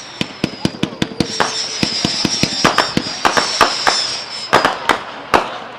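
48-shot 200-gram consumer fireworks cake firing: shrill whistling tails over a rapid, uneven string of sharp bangs and cracks. The last bang comes about five seconds in and the sound then dies away.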